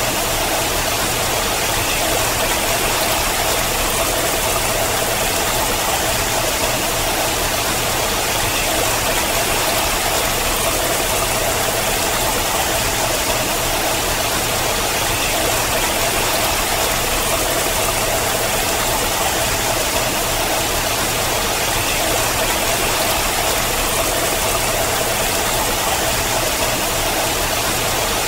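Water falling and splashing down a rock face, a steady, unchanging rush.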